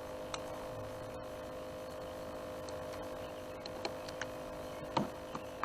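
Faint steady hum with a few small clicks and a short sharper noise about five seconds in, from handling as a hook is worked out of a caught catfish.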